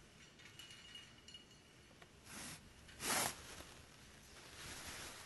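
Needle and thread pulled through heavy sackcloth in hand-sewing: three soft swishes, the loudest about three seconds in and a longer one near the end.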